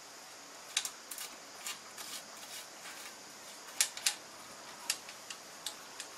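Irregular sharp metallic clicks and light taps, about ten in six seconds, from small parts and a ratchet being handled while refitting parts onto the rear of a car alternator.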